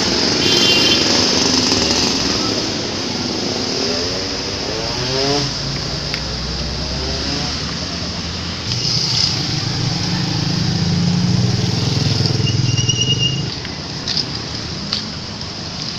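Roadside traffic: road vehicles passing with their engines running. One engine rises in pitch as it accelerates about five seconds in, and a heavier, lower engine goes by from about nine to thirteen seconds.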